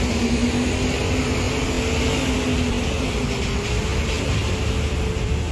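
Diesel engine of a Mercedes-Benz OH1626 coach running with a steady low drone as the bus creeps forward in a queue.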